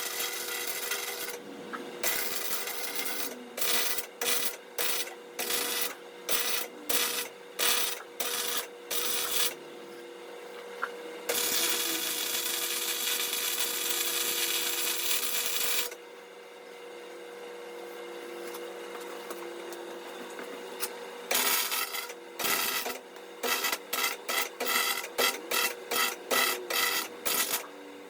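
Electric welding arc crackling on a steel frame: short bursts about twice a second, a continuous bead of about five seconds in the middle, then another run of quick short bursts. A steady hum runs underneath.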